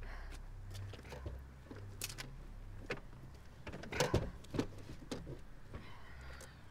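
Scattered knocks, clicks and rustles of a man handling the rear of a car, heard from inside the cabin over a low steady rumble. The loudest cluster of knocks comes about four seconds in.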